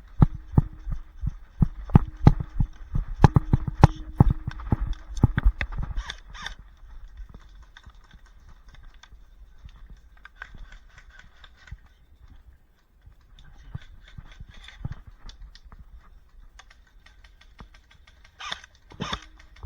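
Running footsteps with gear and the body-worn microphone jostling: a quick run of thuds and knocks for about six seconds. It then slows to quieter scattered steps and clicks, with two louder knocks near the end.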